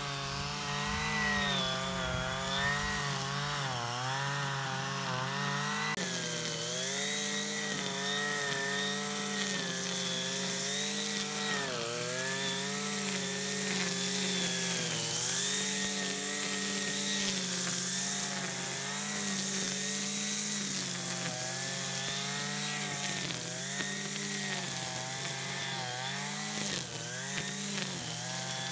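Brush cutter's small engine running, its pitch rising and falling as the line cuts through tall grass.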